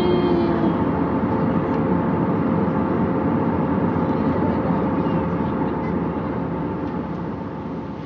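Steady airliner cabin noise in flight: a loud rushing drone of engines and airflow with a faint steady hum in it, fading out over the last couple of seconds.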